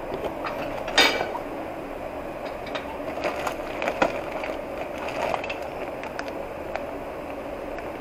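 Used metal bicycle pedals clinking and knocking against each other as a hand rummages through them in a plastic basket: scattered sharp clicks, the loudest about a second in and again about four seconds in, over a steady background hum.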